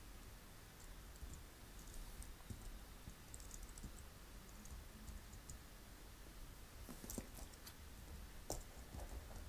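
Faint clicking of a computer keyboard being typed on, scattered and soft, with a few sharper clicks about seven and eight and a half seconds in, over a low steady room hum.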